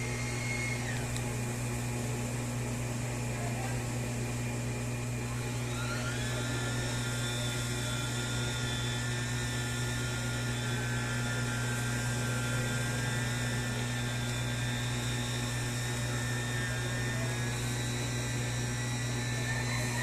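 Small electric motor of a Turbine Wash mini washing machine running steadily as it stirs a batch of dishwashing liquid with thickener, a steady hum under a high whine that steps up in pitch about six seconds in.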